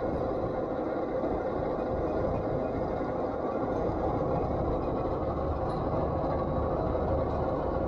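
Isuzu Forward truck's diesel engine running steadily at idle with an even rumble.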